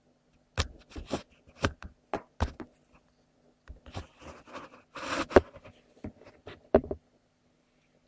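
African grey parrot eating breakfast cereal: a run of sharp, irregular clicks and taps, with a stretch of scraping and crunching in the middle, which stops about seven seconds in.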